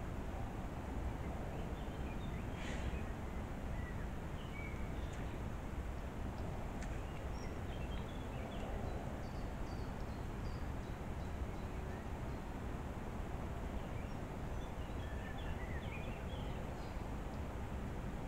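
Forest ambience: scattered faint bird chirps over a steady low rumble and hiss.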